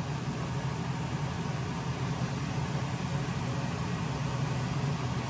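Steady low mechanical hum over an even hiss: room noise, with no other events standing out.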